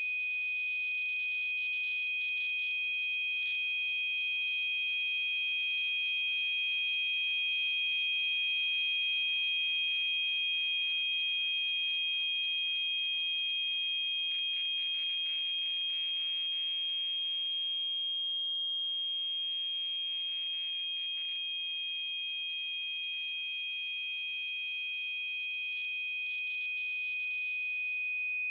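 Tinnitus masking sound: two steady, high-pitched electronic tones, one a little above the other, held over a faint hiss, the level slowly swelling and easing.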